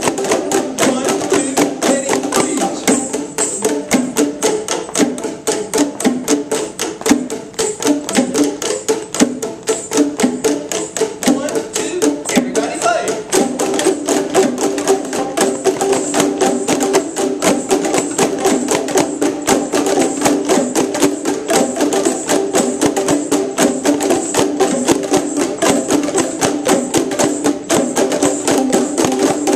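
A group playing boomwhackers: tuned plastic tubes struck in a steady, rapid rhythm, several strikes a second, with several pitches sounding together.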